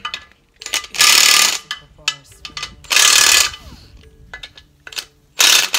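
Ratchet wrench being worked on engine fasteners: three loud bursts of clicking, each about half a second long and about two seconds apart, with a few single clicks between.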